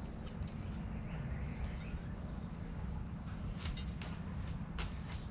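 A steady low background rumble, with two short bird chirps right at the start and a few faint clicks about three and a half to five seconds in.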